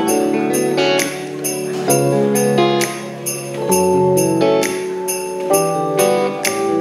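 Live pop band playing an instrumental intro: sustained chords over a steady beat, with a bright high percussion strike about twice a second.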